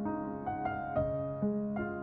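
Background piano music: a slow, gentle melody with notes struck about every half second.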